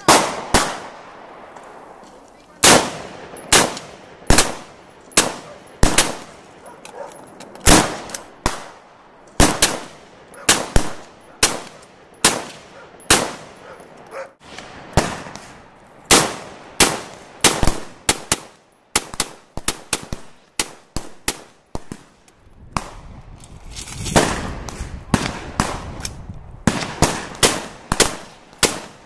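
Olympic Arms AR-15 semi-automatic rifle firing dozens of single shots at an uneven pace, some in quick pairs and strings, each a sharp crack with a short echo.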